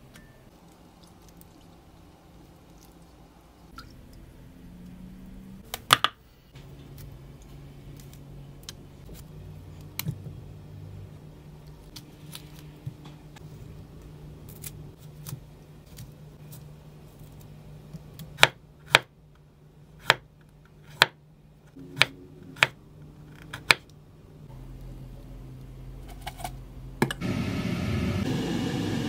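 Kitchen knife cutting broccoli florets on a wooden chopping board: a run of sharp knocks of the blade on the board. Near the end a loud steady rushing noise starts.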